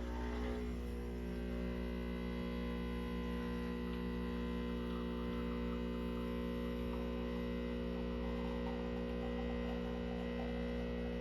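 Home espresso machine's pump running steadily while pulling a shot, an even electric hum that holds the same pitch throughout.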